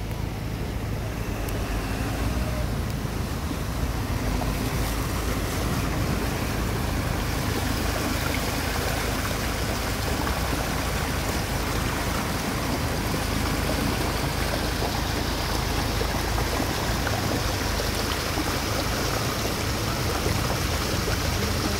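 Steady rushing noise of a car driving through heavy rain, heard from inside the car: hiss of rain and wet road over a low rumble, the hiss growing a little brighter after about seven seconds.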